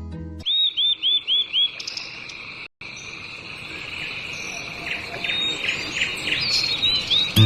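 Outdoor nature ambience: a steady high insect trill, with a bird giving a quick run of five chirps, about four a second, near the start and more scattered chirps toward the end. The sound cuts out for a moment a little under three seconds in.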